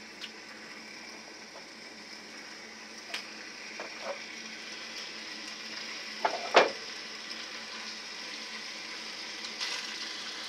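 Thick-cut bacon sizzling steadily as it starts to fry in a cast iron pot. A few short knocks sound over it, the loudest about six and a half seconds in.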